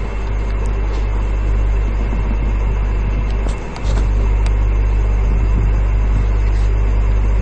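12-volt DC cordless drill's motor running steadily under the trigger. It dips briefly about three and a half seconds in, then runs again. The owner says the drill has become slow, which he puts down to old grease that has hardened inside.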